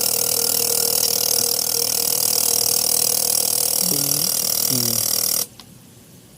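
A machine runs with a steady hum and a strong hiss, then is switched off and stops suddenly about five and a half seconds in.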